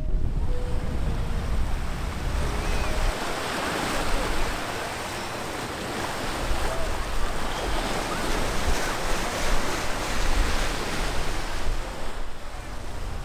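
Sea waves washing up on a sandy shore, a steady rush of surf, with wind buffeting the microphone in gusts.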